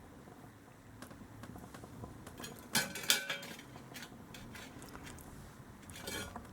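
Small metal transmission valve-body parts clinking and scraping as they are handled, with a cluster of sharp clinks about three seconds in and more near the end.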